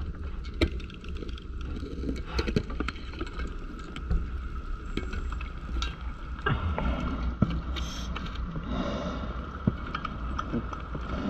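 Underwater sound from a diver's camera: a steady low rumble with many scattered clicks and knocks, and a hiss of breathing gas and bubbles from the diver's breathing gear between about six and a half and nine and a half seconds in.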